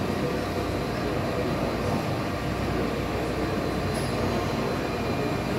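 1999 IBARMIA ZV 50/3000 vertical machining center running with coolant spraying inside its enclosure: a steady mechanical rumble under a hiss of splashing coolant.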